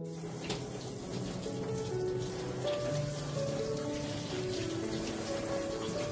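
Kitchen tap running in a steady stream onto a lotus root held in a stainless steel sink as the mud is washed off, with soft piano music playing underneath.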